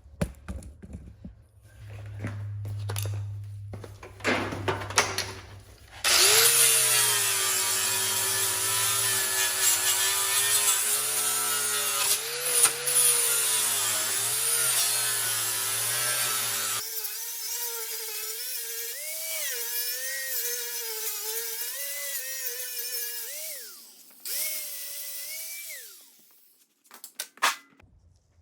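Mini grinder grinding rust off steel, its high whine wavering and dipping in pitch as it bites into the metal. It is loudest for several seconds, then runs on more quietly with a couple of brief stops where the pitch falls, and it stops near the end.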